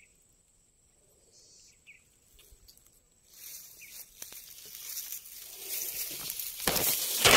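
A faint steady high insect trill, then rustling of tall dry grass brushing against the phone. The rustling comes in about three seconds in, grows, and is loudest near the end.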